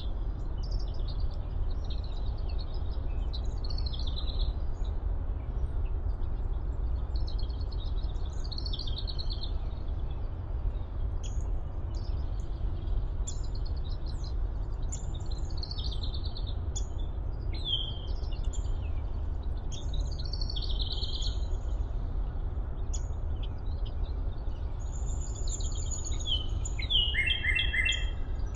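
Several woodland birds singing and calling, with short high chirps and trills scattered throughout and a quick run of repeated notes near the end, over a steady low rumble.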